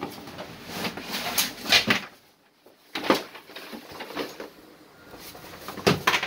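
A survival suit being pulled out of its storage bag and spread on the floor: irregular rustling and thudding of heavy fabric, with a short pause about two and a half seconds in.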